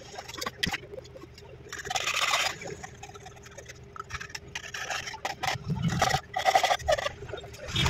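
Clicks and scrapes of a phone's frame and display being handled with metal tweezers on a bench. There are two longer rasping scrapes, about two seconds in and about six seconds in.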